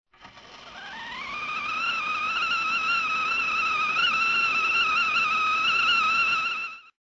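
A single sustained musical tone that slides up in pitch over the first two seconds, then holds with a slight waver and gets louder before cutting off suddenly.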